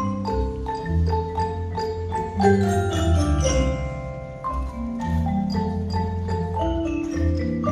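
School mallet-percussion ensemble of xylophones and glockenspiels playing a tune: struck, ringing bar notes in a steady rhythm over low bass notes, with a quick flurry of high notes about three seconds in.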